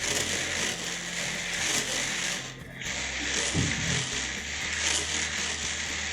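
Plastic slinky coils rattling and clicking against each other as a longitudinal pulse is pushed along them, a dense clatter that drops out briefly a little before halfway.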